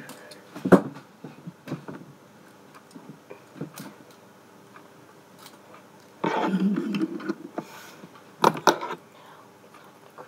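Handling noise from fidget spinners: scattered clicks and knocks, with a louder rustling patch a little past the middle and another sharp knock near the end.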